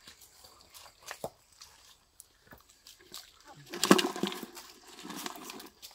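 Scattered light clicks and scrapes of live river crabs moving in a plastic bucket, then a louder knock and rustle about four seconds in as a hand grips and handles the bucket.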